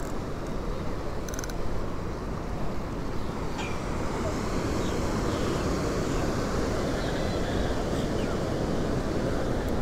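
Steady wind rushing over the microphone, with ocean surf washing below.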